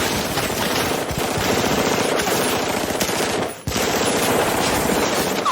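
Continuous rapid automatic gunfire made with the mouth, a cappella, as a sound effect. It breaks off for an instant a little past halfway, then carries on.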